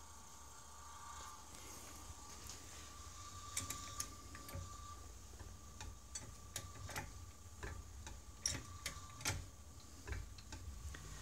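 General Electric Monitor Top (DRA2) refrigerator running with a steady low hum and a faint whine. From about three and a half seconds in, irregular light clicks and ticks sound over it.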